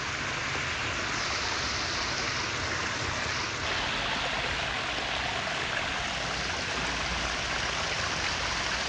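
Water running steadily over a small drop in a concrete channel, a continuous even rush and splash.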